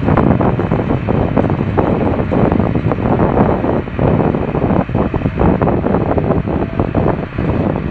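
Heavy wind buffeting on the microphone, over the diesel engine of an MTZ 920.3 tractor working under load as it pulls a plough.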